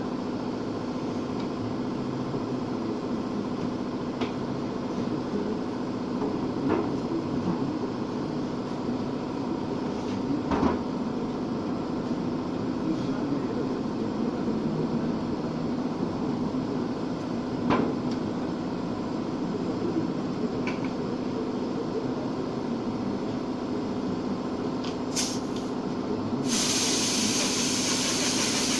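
A steady low machine hum with a few light clicks. Near the end an air paint spray gun hisses in a short blip and then sprays steadily for about three seconds, the loudest sound here, as paint is blended onto a car fender.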